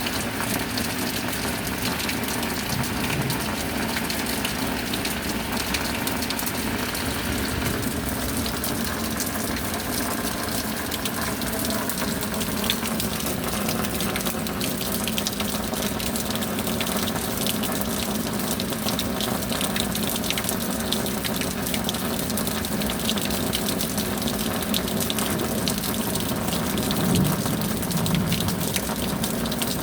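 Steady rain: a continuous hiss of falling water with many small drop impacts, unchanging throughout.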